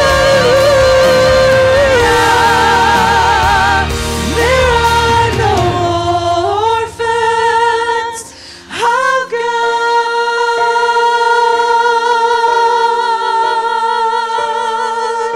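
Gospel song sung with vibrato over a musical accompaniment. About six seconds in, the low accompaniment drops away, and from about halfway the voices hold long notes over sustained chords.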